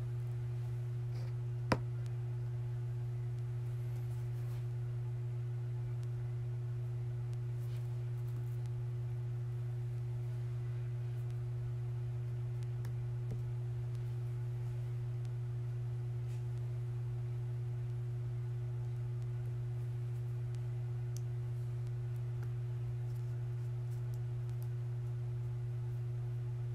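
Steady low electrical hum, one unchanging tone with a fainter higher one above it. A single sharp click sounds about two seconds in.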